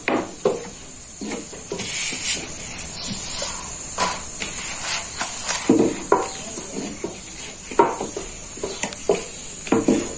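Steady hiss from a gas-fired sac griddle's burner. A few short knocks come as a wooden rolling pin (oklava) lifts and turns a sheet of yufka bread on the hot metal.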